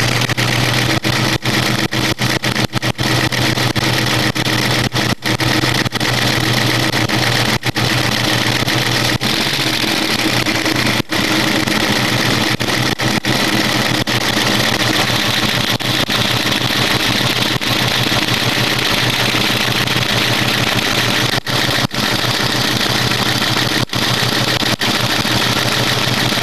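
Ford Mustang 4.6-litre V8 idling steadily with a ticking noise from the engine that appeared after a PI head swap.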